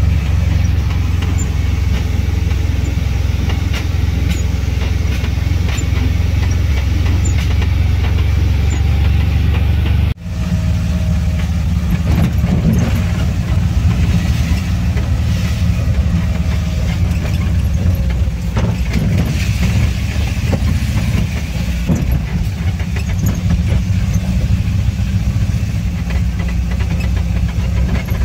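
Air-cooled Volkswagen Kombi's flat-four engine droning steadily, with tyre noise on a wet road, heard from inside the cab while driving. The sound drops out for an instant about ten seconds in.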